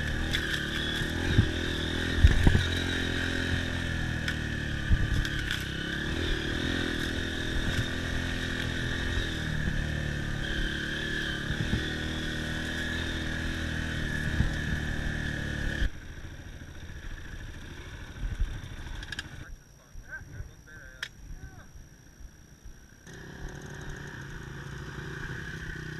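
Dirt bike engine running steadily under way, with occasional knocks and clatter. About two-thirds of the way through the sound drops off suddenly and goes nearly quiet for a few seconds, then a quieter engine sound returns near the end.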